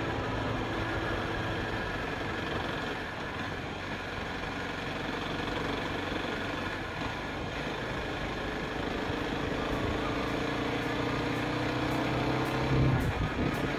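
Sport motorcycle engine running on the move, with rushing wind and road noise. The engine note climbs over the last few seconds, then drops off sharply near the end.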